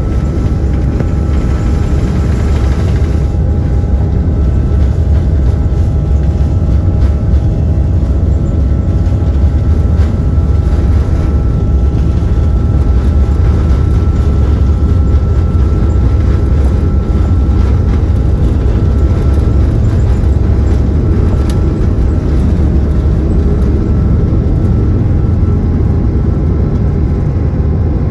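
Airbus A330-300 jet engines at takeoff power, heard from inside the cabin as a loud, steady low rumble with a faint steady whine above it.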